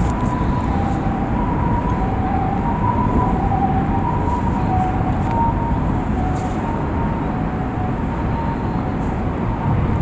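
Distant hi-lo ambulance siren, two notes alternating back and forth and fading away near the end, over a steady low rumble.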